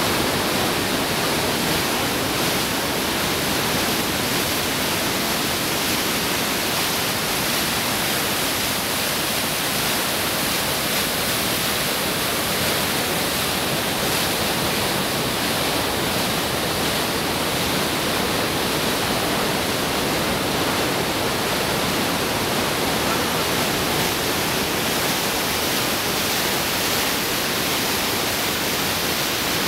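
Waterfall with turbulent, churning river water pouring over rock: a loud, steady rush of white water.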